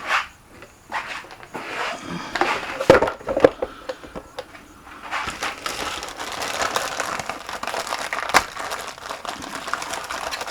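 Plastic RC truck parts being handled and offered up for fitting: scattered clicks and knocks, then a run of small clicks and rustling from about halfway through.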